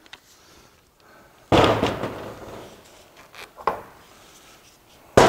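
A sudden loud metal clatter of tools and transfer-case parts being handled on a workbench about a second and a half in, fading over about a second, then a lighter knock near the end.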